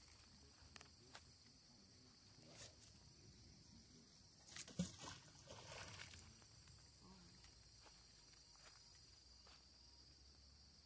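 A neodymium fishing magnet on a rope splashing into a lake about five seconds in, a short sudden splash followed by about a second of water noise; otherwise near silence with a few faint clicks.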